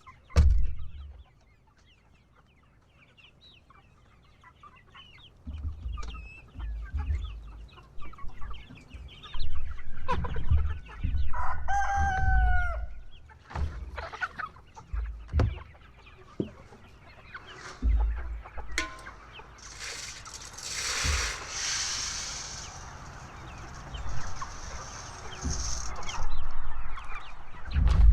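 Chickens clucking, and a rooster crows once about twelve seconds in. Low knocks and handling thumps come and go, and a rustling hiss runs for several seconds in the second half.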